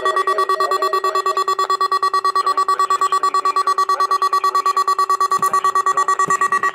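NOAA Weather Radio warning alarm tone sounding through weather radio receivers during a required monthly test. It is a loud steady tone near 1 kHz with a fast throbbing of about ten pulses a second, and it cuts off at the end.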